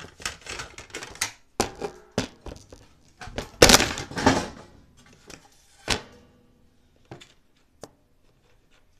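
Knocks, clicks and scraping from handling the sheet-metal housing of a bathroom heater and exhaust fan unit during installation. The clatter is busiest in the first six seconds and loudest about four seconds in, then thins to a few separate clicks.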